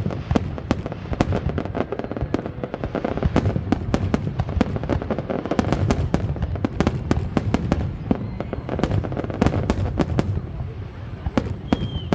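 Fireworks display: a rapid, irregular crackle of many sharp bangs over a continuous low rumble of exploding shells.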